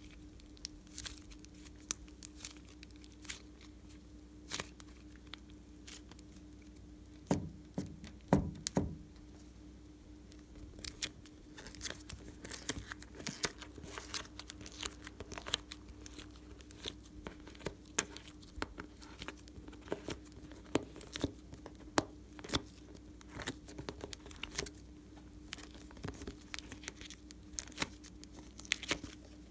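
Hands squeezing, pulling and tearing stiff slime and clay, making sticky crackling and popping clicks scattered throughout, with two louder pops a little before the midpoint. A faint steady hum runs underneath.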